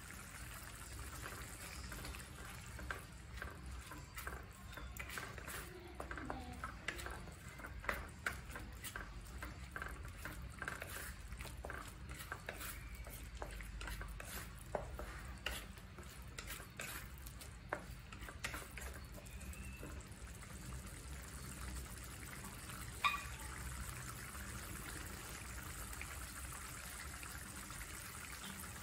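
Wooden spoon stirring a thick sauce of peas in a metal pan: wet stirring with repeated light knocks of the spoon against the pan for much of the time, then one sharper knock later on.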